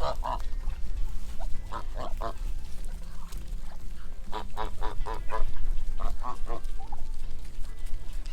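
Geese honking in several short runs of repeated honks, about a second and a half in, again from about four and a half seconds, and once more after six seconds.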